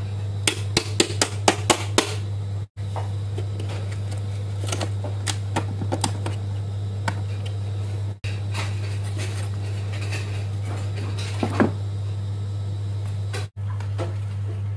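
A steady low hum, with a quick run of sharp clicks and taps in the first two seconds and scattered lighter taps later, from hands handling a metal LED flood light housing on a bench. The sound cuts out briefly three times.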